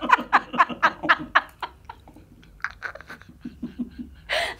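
Laughter: a run of quick ha-ha pulses that fades out about a second and a half in, then softer low chuckles, and a short breathy burst near the end.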